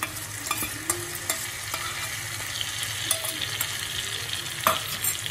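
Onions frying in oil in a pan, a steady sizzle, as chilli sambal paste is spooned in. A metal spoon scrapes and clicks against a steel bowl, with one sharper knock about 4.7 s in.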